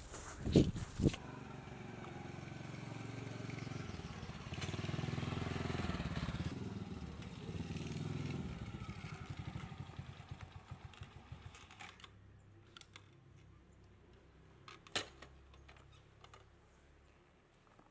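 Small four-stroke single-cylinder engine of an old Honda step-through motorcycle running. It grows louder over the first few seconds, then fades away over several more. One sharp click comes near the end.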